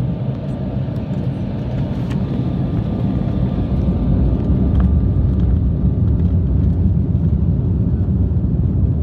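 Steady low rumble of a jet airliner's engines and airframe heard inside the cabin as it taxis onto the runway, growing somewhat louder about halfway through, with a faint thin steady whine above it.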